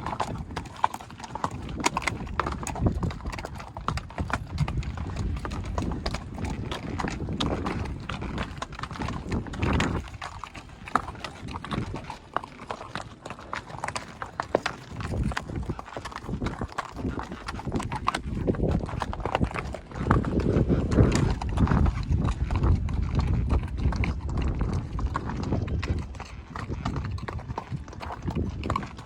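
A horse's hooves clip-clopping at a walk on a rocky trail as it climbs a ridge: a quick, uneven run of sharp hoof strikes on stone over a steady low rumble.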